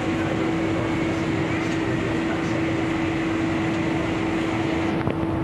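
Steady hum of a South Island Line S-Train standing at a station, its air conditioning and onboard equipment running, with a steady mid-pitched tone through it. A single faint click about five seconds in.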